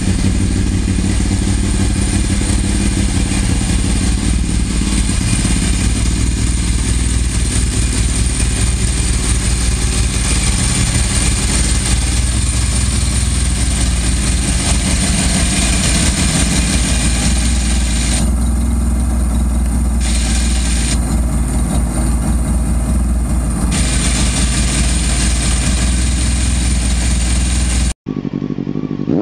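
Ducati 916 SPS's L-twin engine running steadily without revving. The sound cuts off abruptly near the end.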